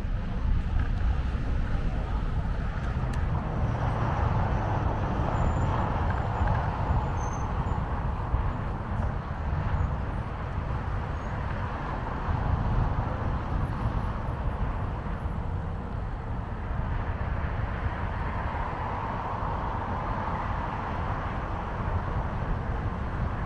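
Road traffic on a city avenue: cars and trucks passing steadily, swelling twice as nearer vehicles go by, once about five seconds in and again late on.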